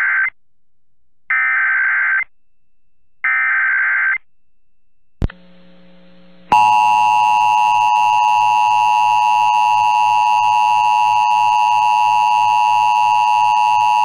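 Emergency Alert System header: three one-second bursts of warbling data tones, a second apart, then a click. About six and a half seconds in, the EAS two-tone attention signal starts, a loud steady dual tone of about 853 and 960 Hz. It announces that an AMBER Alert test message follows.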